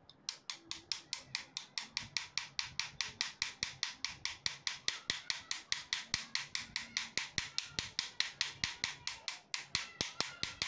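Ratcheting hand screwdriver clicking rapidly and evenly, about six clicks a second, while driving a screw into an angle grinder's gear head housing. The clicking starts just after the opening and stops abruptly near the end.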